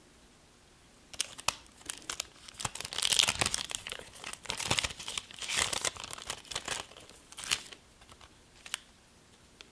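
A Yu-Gi-Oh World Superstars foil booster pack being torn open and crinkled, with bursts of crackling and tearing that are loudest a few seconds in, then a few small rustles near the end.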